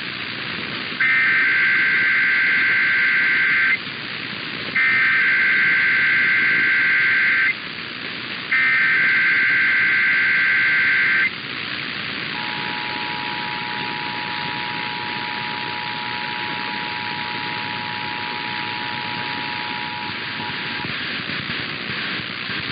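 Emergency Alert System signal received over radio: three bursts of SAME header data encoding a Required Monthly Test, each about three seconds long with short gaps, followed by the steady two-tone EAS attention signal (853 and 960 Hz) held for about eight and a half seconds. A steady radio hiss runs underneath.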